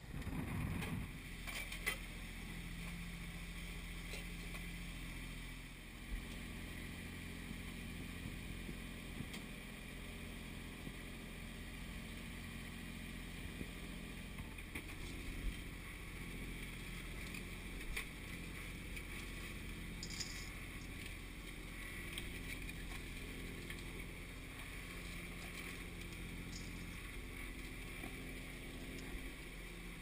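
Wind buffeting the microphone on a sailboat's deck for the first second. Then a steady muffled rumble and hum inside the boat's cabin while under way, with a few light clicks and knocks.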